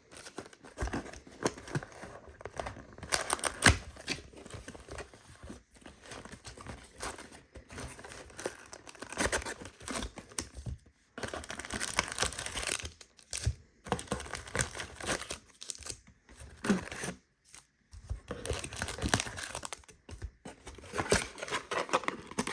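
Packaging of a trading-card display box being torn open and crinkled by hand, in irregular bursts of tearing and rustling with sharp handling clicks; the loudest snap comes about four seconds in.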